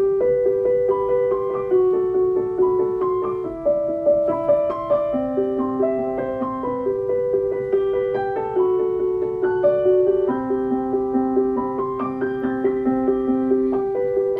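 Solo piano music: a gentle melody of single notes, many of them repeated, played at an even pace.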